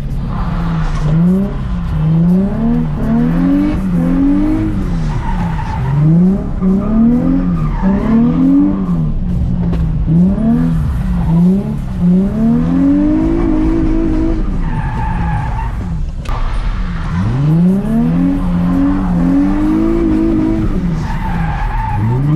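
Nissan 350Z's 3.5-litre V6 revving up and dropping back again and again as the car is drifted through a figure-eight on wet tarmac, heard from inside the cabin.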